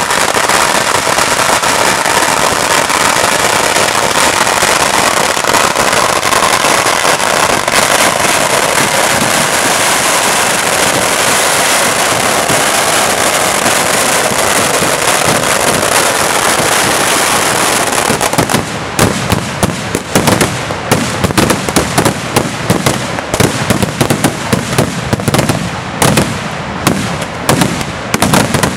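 Kerala temple-festival firecrackers (vedikkettu) going off at ground level in a very loud, dense crackle, so rapid that the bangs merge into one unbroken din. About 18 seconds in it breaks up into separate sharp bangs, several a second.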